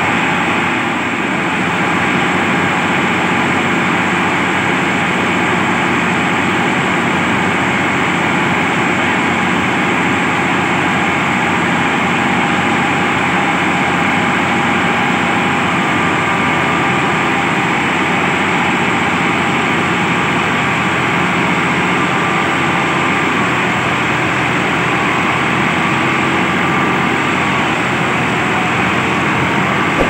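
Rice thresher driven off the power take-off of an Al-Ghazi 65 hp tractor, running steadily under load as rice bundles are fed in, together with the tractor's diesel engine working hard to turn it.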